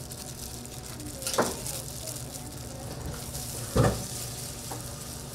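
Food frying with a faint steady sizzle, broken twice by sharp knocks, about a second and a half in and, louder, nearly four seconds in.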